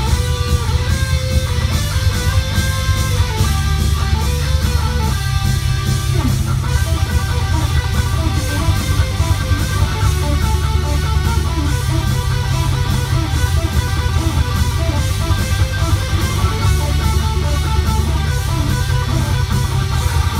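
Electric guitar instrumental: a melodic line of quickly changing picked notes over a dense, steady low end.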